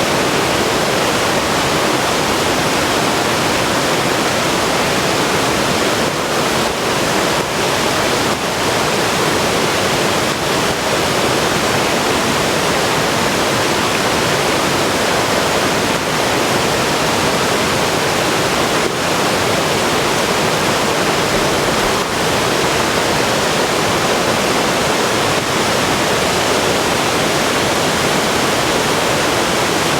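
River water rushing over rocks in a steady, loud, unbroken roar of flowing rapids.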